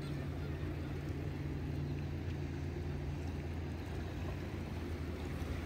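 A steady low engine drone, even and unbroken.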